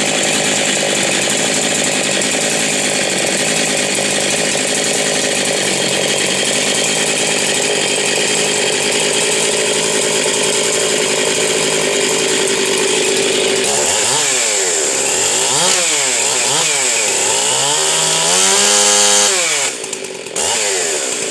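Husqvarna 372 XP, a 72cc two-stroke chainsaw with a dual-ported muffler, freshly rebuilt, running loud and steady at high revs. From about 14 seconds in its engine speed swings down and back up several times, then briefly drops near the end.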